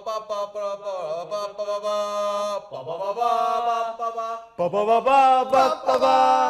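Several voices singing long held notes together without words, chant-like, with a short break about four and a half seconds in before they come back louder.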